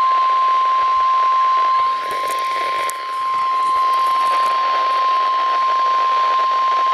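NOAA Weather Radio 1050 Hz warning alarm tone: one steady, unbroken high tone over a hiss of radio static, the signal that an emergency alert, here a severe thunderstorm watch, is about to be read.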